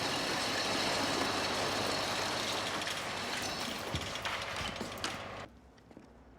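Steady mechanical rumble and noise with a few scattered clanks. It cuts off suddenly about five and a half seconds in, leaving a much quieter background.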